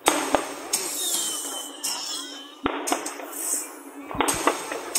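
Fireworks going off: sharp bangs scattered throughout, with crackling between them and a short falling whistle about a second in.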